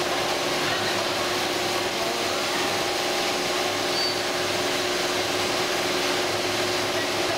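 Richpeace L1500 high-speed multi-head quilting machine running, its needle heads stitching the quilt: a steady mechanical running noise with a constant hum.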